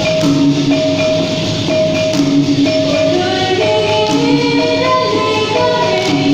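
Dikir barat performance: a solo girl's voice sings through a microphone over a repeating two-note accompaniment and a steady rattling percussion beat, her melody climbing from about three seconds in.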